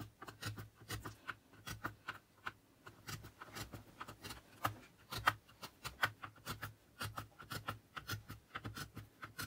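A piercing awl punching a row of holes through a stack of 125 g paper held in a bookbinding punch guide: a quick, irregular run of sharp clicks, about three or four a second.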